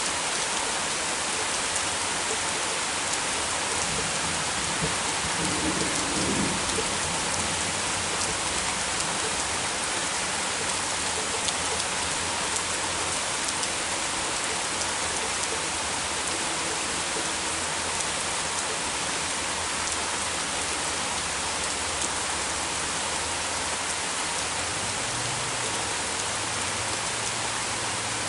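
Heavy rain pouring steadily, with a low rumble of thunder about five seconds in.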